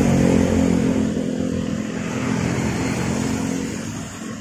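A motor scooter and a cargo truck passing close by, their engines loudest at first and fading over a few seconds as they move away, over a steady background of road traffic.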